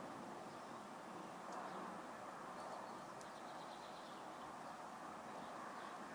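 Steady outdoor background noise with a few faint, short, high bird chirps now and then.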